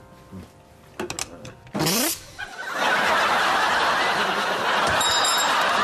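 A studio audience bursting into laughter a little under three seconds in and laughing steadily from then on, after a short, sharp noisy burst just before it.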